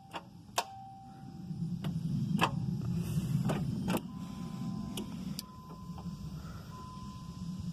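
A vehicle's ignition is tried on an engine that is locked up and will not turn over: several sharp clicks and a low mechanical rumble for about two seconds, then a steady high tone from about four seconds in.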